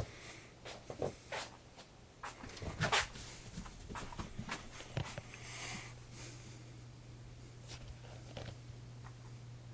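A cat playing: scattered light taps, scuffs and rustles, busiest in the first six seconds, with the loudest knock about three seconds in. A steady low hum runs underneath.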